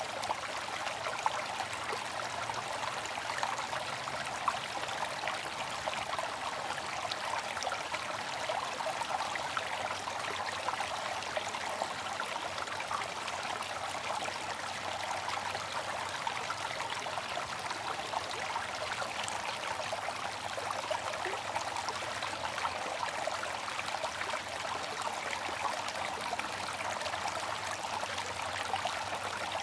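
Bamboo water fountain, water trickling steadily without pause.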